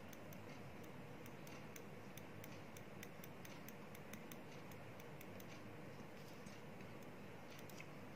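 Faint ticks and light scratches of a pen writing on paper, several a second and slightly irregular, over a low steady room hiss.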